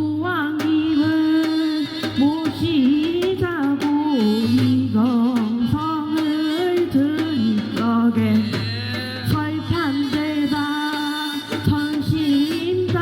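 A shaman's sung ritual chant invoking the dragon king in a Korean gut, one voice sliding and wavering in pitch, over steady percussion strikes and a low drone.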